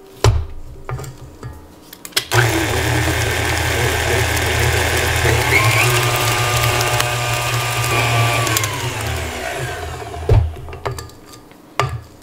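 KitchenAid stand mixer running with its flat beater, creaming butter, brown sugar, egg and molasses in the steel bowl. A few knocks come before the motor starts about two seconds in. Its pitch shifts partway through, and the motor winds down with a falling whine a couple of seconds before the end.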